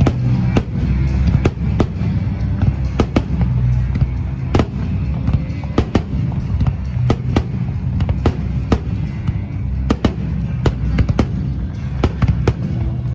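Aerial fireworks shells bursting in quick, irregular succession: many sharp bangs and crackles over a continuous low rumble.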